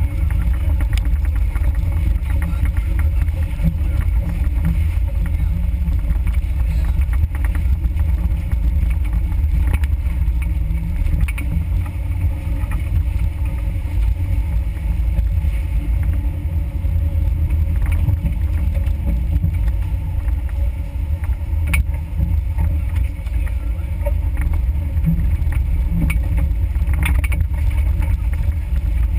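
Suzuki Samurai 4x4 crawling at low speed along a muddy off-road trail: a steady low engine and drivetrain rumble, with a few brief knocks as the vehicle jolts over ruts.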